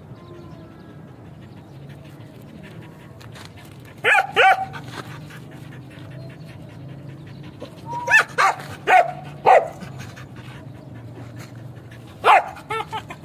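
Dog barking in short separate barks: two about four seconds in, a run of four around eight to nine and a half seconds, and a few more near the end.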